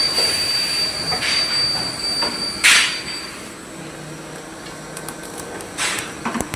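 CNC machine running: a steady high-pitched whine that stops about three seconds in, with short hissing bursts and a few clicks.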